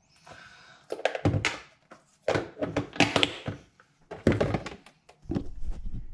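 Close handling noise: a soft rustle, then several clusters of sharp knocks and thunks as the camera is picked up and moved over plastic tubs on a kitchen worktop.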